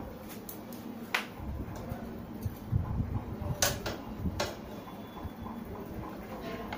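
A few sharp light clicks and taps from a hand handling the metal mechanism of a kerosene Stirling engine fan, about a second in and twice more midway, over low steady background noise.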